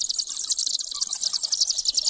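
A roosting colony of grey-headed flying foxes chattering: a continuous, high-pitched twitter of rapid, overlapping squeaks.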